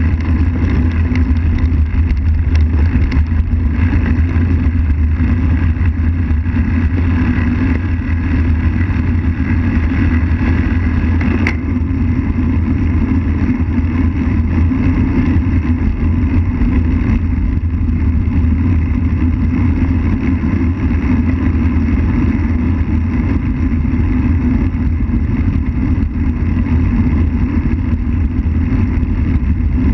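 Steady rush of wind buffeting a bike-mounted camera's microphone on a moving bicycle, mixed with tyre noise rolling on asphalt, with one brief click near the middle.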